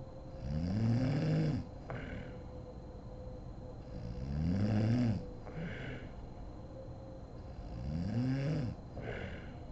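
A sleeping woman snoring: three loud snores about four seconds apart, each rising and then falling in pitch, and each followed by a short breathy puff of air.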